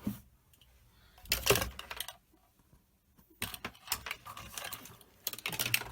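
Clicks and knocks of small plastic test instruments being handled on a workbench: one knock about a second and a half in, a quiet pause, then a run of irregular clicks and taps near the end.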